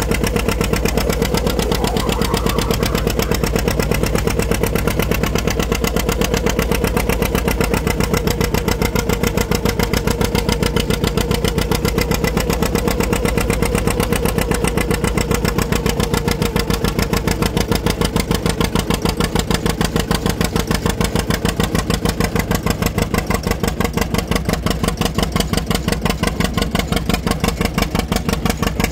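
1943 John Deere B's two-cylinder engine running steadily under load as the tractor pulls down the track, with a fast, even exhaust beat.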